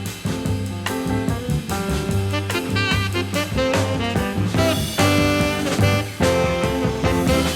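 Background music in a jazz/swing style with horn-like melody and a steady drum beat.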